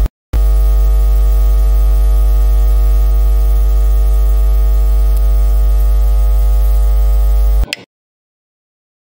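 Loud, steady electrical hum: a deep buzz with many even overtones, like mains hum. It comes in just after a brief click and cuts off suddenly near the end.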